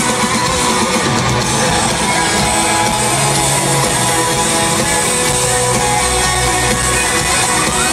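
Live band music played loud through an arena sound system, guitar prominent, recorded from within the audience.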